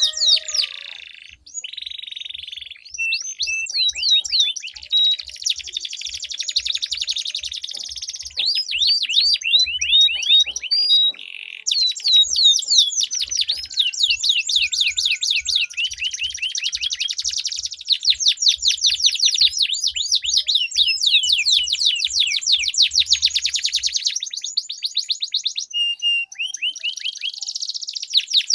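Domestic canaries singing long rolling trills of very rapid, high repeated notes, with only brief pauses between phrases.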